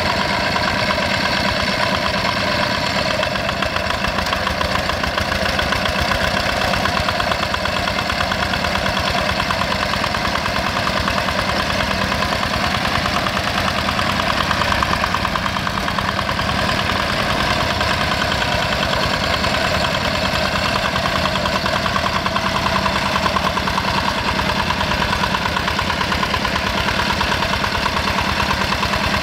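Single-cylinder Yanmar diesel engine of a Quick G1000 two-wheel hand tractor, running steadily under load as it plows wet paddy mud.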